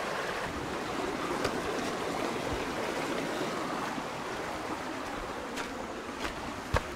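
Creek water rushing steadily over rocks in small rapids. A few faint knocks sound near the end.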